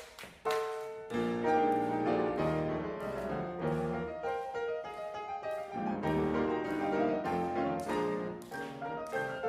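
Four pianists playing ragtime-style piano music. A sharp accented chord right at the start, a brief drop in level, then full chordal playing with a moving bass resumes about a second in.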